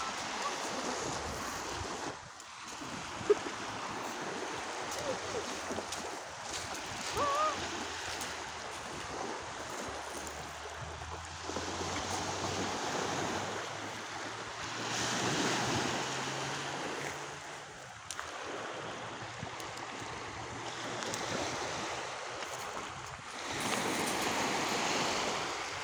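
Small waves washing in and draining back over a pebble beach, rising and falling in swells, with wind on the microphone. A single sharp click about three seconds in.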